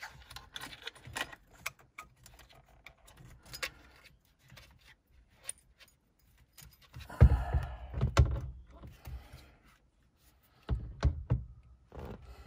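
Steering wheel being fitted back onto a 2005 Toyota Prado's steering column: light clicks and rustles of handling, then a run of heavy knocks and thuds about seven seconds in, and a few more near the end, as the wheel is pushed onto the column.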